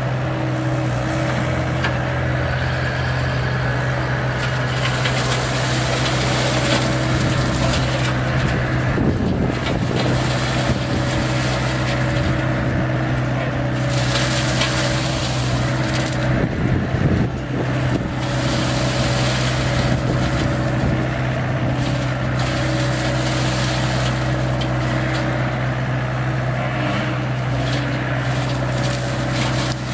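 Excavator-mounted RDM34 disc mulcher spinning and grinding through brush, over the steady drone of the John Deere compact excavator's diesel engine. The grinding gets louder and rougher about nine seconds in and again around seventeen seconds.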